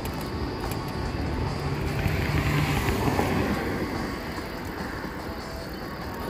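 Road traffic: a motor vehicle passes, loudest about two to three seconds in, then fades back to a steady traffic hum.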